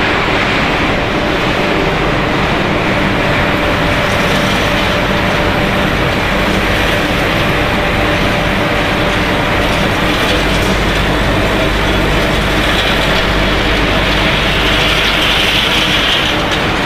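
Continuous automatic snack fryer line running: steady, loud machinery noise from its conveyor and drive as fried snack chips are carried out of the oil.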